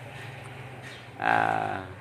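A cow mooing once, briefly, over a steady low hum.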